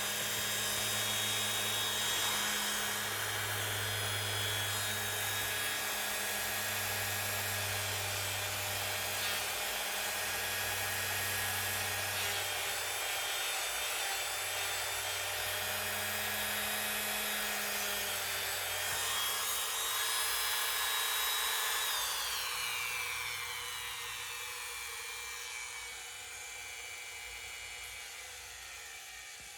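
A small electric rotary tool running steadily with a high whine, then spinning down with a falling pitch about 22 seconds in.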